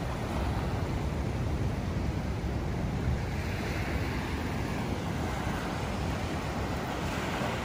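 Ocean surf breaking and washing up a sandy beach, with wind buffeting the phone's microphone in a low rumble. The hiss of the wash swells about halfway through.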